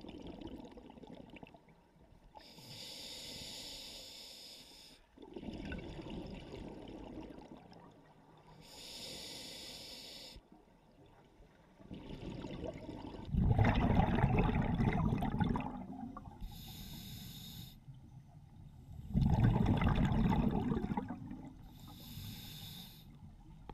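Scuba diver breathing through a regulator underwater: short hissing inhales through the demand valve alternate with bubbly exhales. There are four inhales, and the two exhales in the second half are the loudest.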